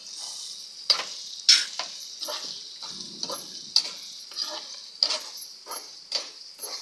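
Spoon stirring and scraping through potatoes, tomato and masala frying in ghee in a kadhai, about two strokes a second over a steady sizzle.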